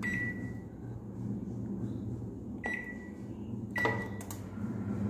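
Microwave oven set to preheat, running with a steady low hum, and giving three short high beeps from its controls: one at the start and two more about a second apart past the middle.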